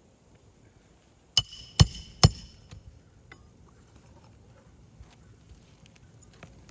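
Three sharp hammer blows about half a second apart, each with a brief metallic ring, driving a new nail into an asphalt roof shingle, followed by a few faint taps.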